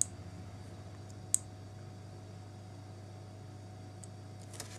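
Low steady hum with a few small, sharp clicks, the sharpest about a second and a half in: the little switch of a home-made UV LED banknote checker being handled and switched off.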